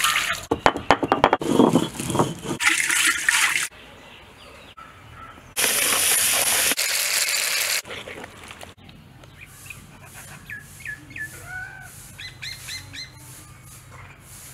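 Water pouring and splashing onto a stone grinder for the first few seconds, then a steady loud hiss for about two seconds midway. Small birds chirping in short calls through the second half.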